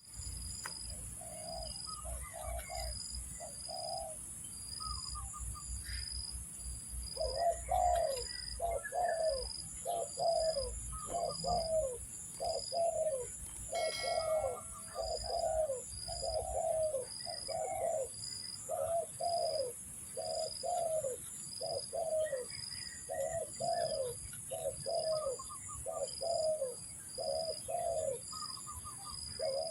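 Spotted dove (tekukur) cooing: a run of repeated low coo notes, a few in the first seconds, then nearly back to back from about seven seconds in. A steady, pulsing high-pitched buzz runs behind it.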